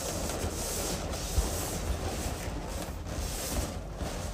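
Latex balloons being handled on a balloon column: rubbing noise, with a few soft thumps.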